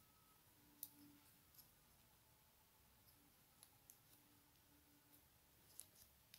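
Near silence, with a handful of faint, irregular clicks from a tatting shuttle and its thread being handled while a double stitch is formed.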